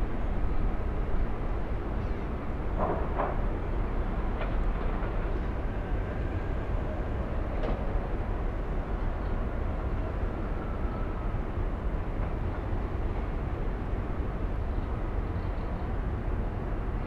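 Steady low rumble of harbour background noise, with two brief sharp sounds about three seconds in and single short ones near four and a half and eight seconds.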